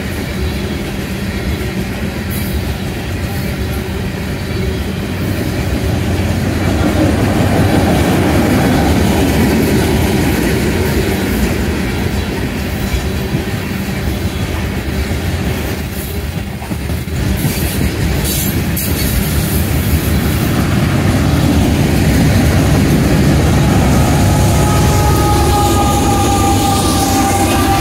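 Long coal train of steel hopper cars rolling past at close range, with a steady heavy rumble and rattle of wheels on the rails. Near the end a Union Pacific diesel locomotive at the rear of the train passes, adding a pair of high whining tones that fall slightly in pitch.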